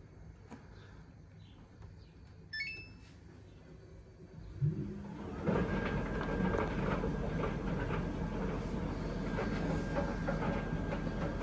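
Samsung heat-pump tumble dryer starting a cycle: a short electronic chime, then about four and a half seconds in the drum motor spins up. The drum then turns steadily with the load tumbling, giving a low rumble with a thin steady whine and frequent light clicks and taps.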